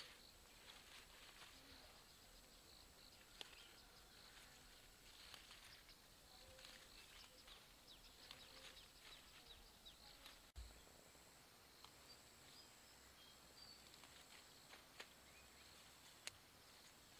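Near silence: faint outdoor background with many small scattered clicks and ticks, thinning out after a brief low thump about ten seconds in.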